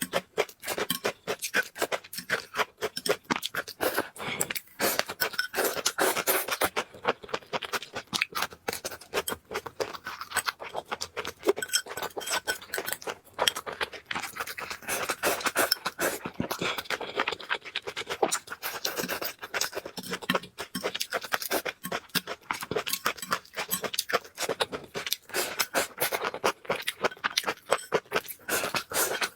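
Close-up eating sounds of someone eating noodles: a continuous run of small wet clicks, crunches and chewing noises, with occasional clinks of utensils against a bowl.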